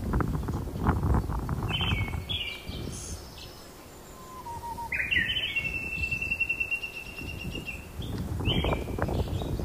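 Birds calling and singing: several short notes that slide downward, and one long, steady trill a few seconds in. Bursts of low, rough noise are the loudest sound at the start and again near the end.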